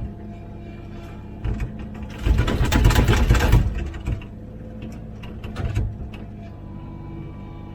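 Komatsu PC16 mini excavator's diesel engine running steadily under hydraulic load while digging, with a loud scraping crunch of the bucket in the ground about two seconds in that lasts about a second and a half, and a few short knocks.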